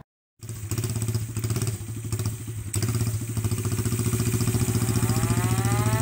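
A custom mini bike's small engine running steadily, with an even rapid firing pulse. Music fades in near the end.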